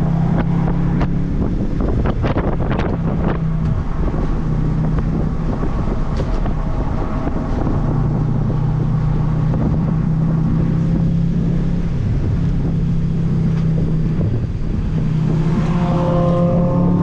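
The Audi B7 RS4's 4.2-litre V8 running hard at track speed, heard under heavy wind rushing over the microphone. A cluster of sharp knocks comes about two to three seconds in, and a rising whine near the end.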